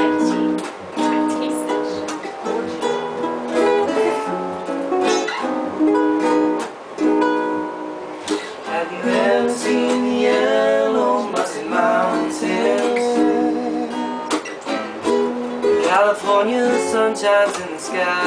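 A ukulele and an acoustic guitar strummed together in a small room, playing a steady, rhythmic accompaniment; a man's singing voice comes in about halfway through and again near the end.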